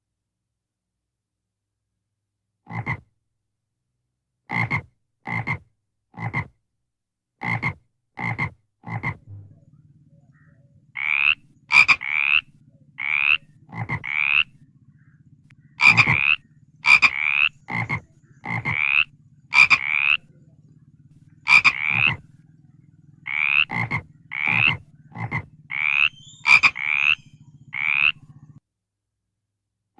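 Frogs croaking: short calls every second or so start a few seconds in, and from about nine seconds a steady low hum and longer, higher calls that rise in pitch join them.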